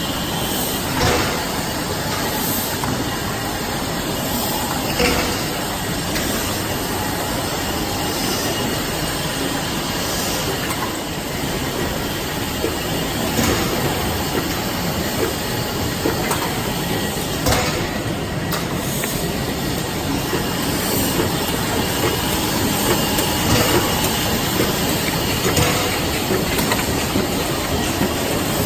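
AEM-1080 automatic die cutting machine running: a steady mechanical clatter with a hiss, and an occasional sharper knock.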